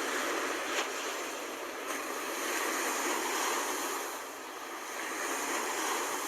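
Sea surf washing in, a steady hiss of waves that swells twice.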